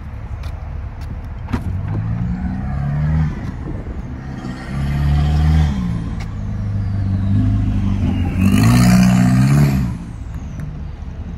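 Motor vehicle engine running, its pitch rising and falling in several swells, the loudest about nine seconds in.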